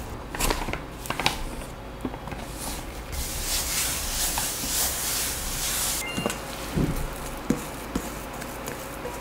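A few clicks of a spatula scraping wet dough in a bowl, then a soft, steady swishing hiss for about three seconds as a hand sweeps flour across a silicone baking mat. Near the end come a few light knocks as the bowl is tipped over the mat.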